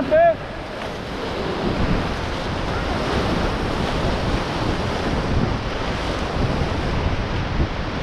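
Class III whitewater rapids rushing and churning around an inflatable raft, with wind buffeting the microphone.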